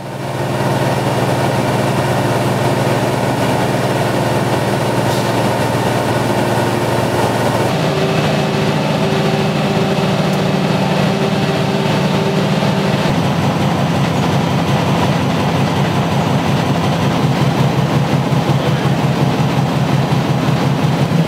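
Newspaper printing press and overhead gripper conveyor running at speed: a loud, steady mechanical din with a fast, regular clatter. The sound changes abruptly about 8 seconds in and again about 13 seconds in.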